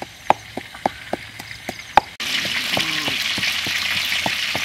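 A pestle knocking in a mortar, about three sharp strikes a second. A little over two seconds in, the sound switches abruptly to a loud, steady sizzling hiss like frying, with a few knocks still heard under it.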